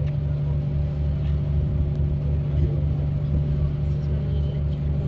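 Passenger cruise boat's engine running steadily, a constant low hum over an even, rhythmic throb.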